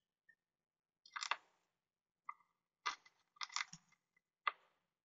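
Computer keyboard keys tapped about half a dozen times at irregular intervals, short sharp clicks, while a file name is typed with a Chinese input method.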